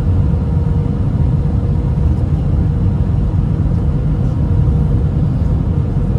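Steady loud cabin noise of a jet airliner in flight, heard from a seat over the wing: a deep rumble of engine and airflow with a faint steady hum running through it.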